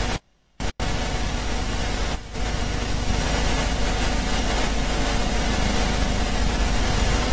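Steady hiss with a low rumble underneath, cutting out abruptly for about half a second near the start and dipping briefly again about two seconds in.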